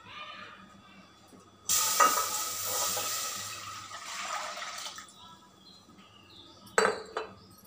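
Milk poured from a plastic packet into a steel saucepan: a steady splashing pour lasting about three seconds. Two short sharp sounds follow near the end.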